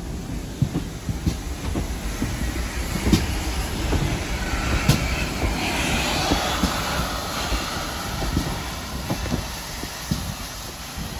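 GWR Large Prairie 2-6-2 tank locomotive 4144 and its coaches rolling slowly past close by, wheels clicking irregularly over rail joints over a low rumble. A higher rushing sound swells around the middle as the locomotive goes by.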